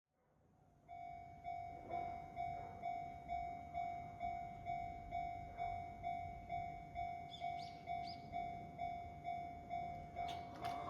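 Japanese railway level-crossing warning bell ringing, a single electronic tone repeating about twice a second and starting about a second in, signalling an approaching train. A few sharp clicks come in near the end.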